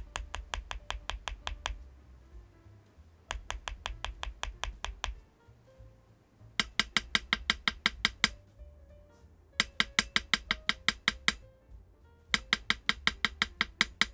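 Rapid keystrokes on a LUMINKEY75 V2 gasket-mounted, foam-filled aluminium mechanical keyboard with LUMINKEY Astral switches. There are five quick runs of about eight evenly spaced clicks a second, each run lasting a second and a half or so. The last three runs are louder and brighter than the first two.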